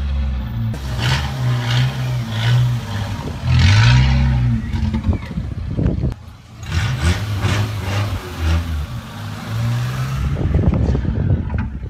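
Car engine revved in repeated short blips, its pitch rising and falling, with a brief lull about halfway through.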